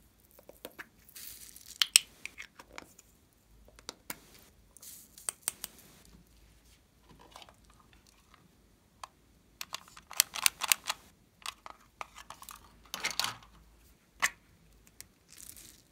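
Fingers pressing and poking into glossy slime topped with foam beads, giving sharp wet clicks and crackles in clusters, with a quiet stretch in the middle.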